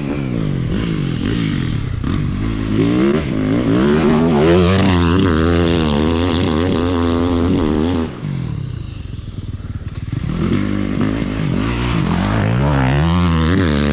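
Dirt bike engine being ridden under throttle, its pitch rising and falling as the rider rolls on and off the gas. About eight seconds in the engine sound drops away for a couple of seconds, then picks up again and climbs.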